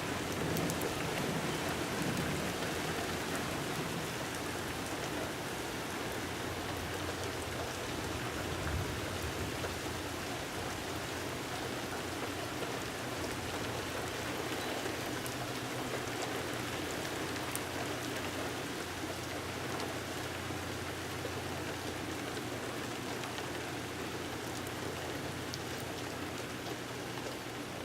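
Steady rain falling and pattering on surfaces during a thunderstorm.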